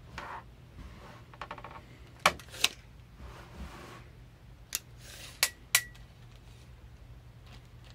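Hands handling a tape measure on a tabletop beside woven cotton boxer shorts: soft fabric rustling, a quick run of ticks, then several sharp clicks and taps. The last two clicks carry a short metallic ring.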